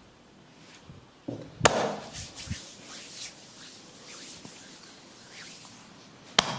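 Hands working during a massage: rubbing and scratching on skin and hair, with two sharp hits, one about a second and a half in and one near the end.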